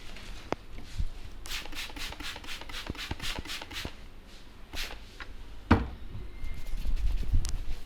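A barber's hands working on a client's head during an Indian head massage: a quick run of hand strokes on the head, about eight a second, then a few single knocks, the strongest one just before the end.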